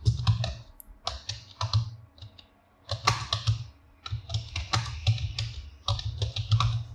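Typing on a computer keyboard: quick, irregular key clicks in short runs, with brief pauses between runs.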